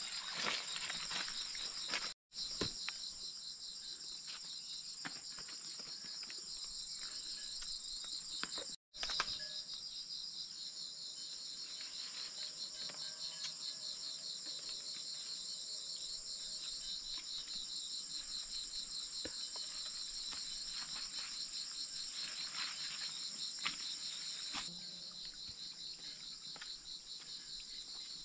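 Dense insect chorus: a steady, high, rapidly pulsing trill, with faint rustles and snaps of leafy branches being handled. The chorus cuts out for an instant twice, about two and nine seconds in, and gets a little quieter near the end.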